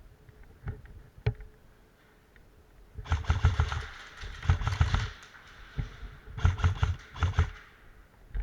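Airsoft gun firing on full auto: a burst of about two seconds starting about three seconds in, then a shorter burst near the end, with a few single clicks before them.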